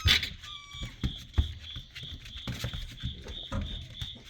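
Young Black and Tan Coonhound puppies in their box: one brief high whine about half a second in, amid knocks and scuffling as the litter moves about.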